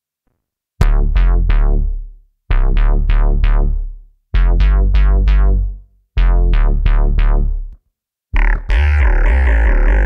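Cherry Audio Quadra software synthesizer playing its 'Attitude Problem' bass preset: four short phrases of deep bass, each made of rapid repeated notes with bright attacks that fade quickly, separated by brief gaps. About eight seconds in, a denser, continuous bass sound takes over.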